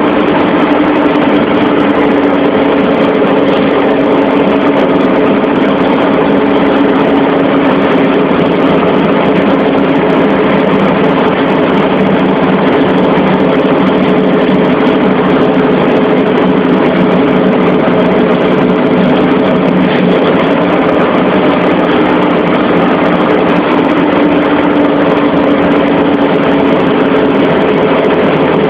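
Heavy farm haulage vehicle's engine running steadily, a loud continuous drone whose pitch wavers only slightly.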